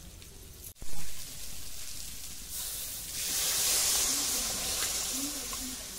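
Water poured into a hot kadhai of frying crab masala, hissing and sizzling as it hits the hot pan and turns to steam. It starts suddenly about a second in, and the hiss swells to its loudest in the middle before easing off near the end.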